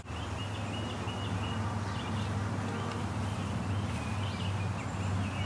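Outdoor woodland ambience: a steady low rumble with faint, short bird chirps repeating.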